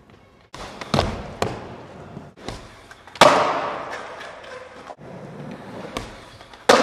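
Skateboard tail pops, landings and board slaps on wooden ramps and concrete, a string of sharp cracks and thuds that echo in a large hall. The loudest bang comes about three seconds in, and another strong one comes near the end.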